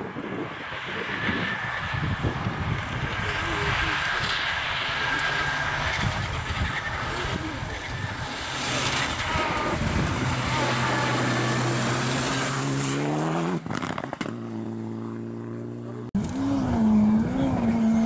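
Mitsubishi Lancer rally car driving hard through water across a flooded road, its spray hissing over the engine. About ten seconds in, the engine revs climb, break off at a gear change and carry on steady. Near the end a sudden cut brings in another rally car's engine, its pitch rising and falling.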